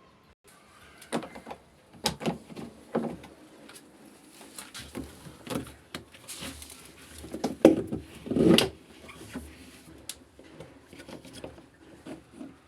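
Irregular knocks, clicks and rustling of parts and tools being handled during repair work on a twin tub washing machine. The loudest knocks come close together about two thirds of the way in.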